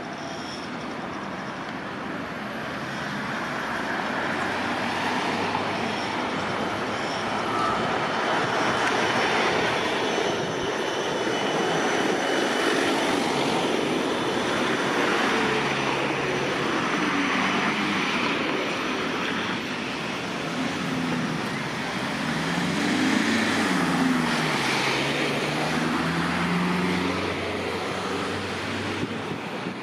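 Electric tram running past close by: a steady rumble of wheels on rails that builds over the first few seconds. In the second half the whine of its electric drive slides down in pitch, then rises and falls again.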